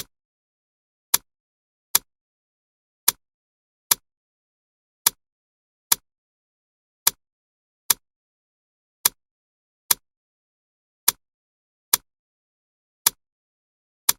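Clock ticking steadily, one sharp tick about every second, with silence between the ticks.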